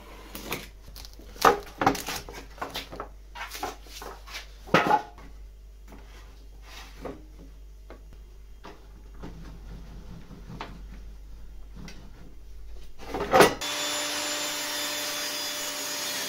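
Pine boards handled on a table saw: a run of wooden knocks and taps, then sparse small clicks. Near the end a loud knock, and the table saw running with a loud steady noise.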